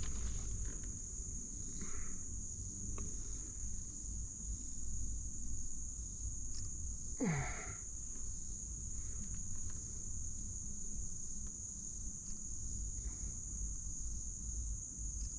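Steady high-pitched drone of insects chirring in the riverside vegetation, over a low rumble. About seven seconds in there is a brief vocal sound falling in pitch.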